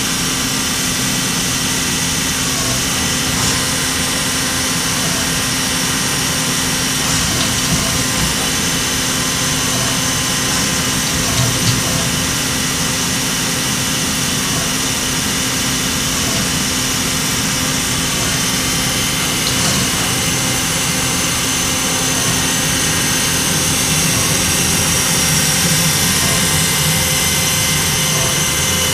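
INDEX ABC CNC lathe running: a steady machine hum with several high, steady whining tones over it.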